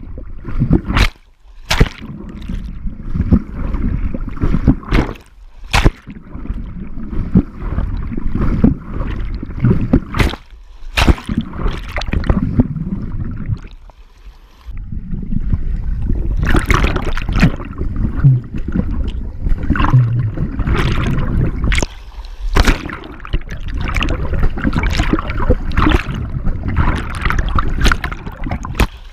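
Pool water churned by a swimmer, heard through a camera moving in and out of the water: a constant low rumble of sloshing and bubbling with many sharp splashes and knocks, broken by a few short quieter gaps.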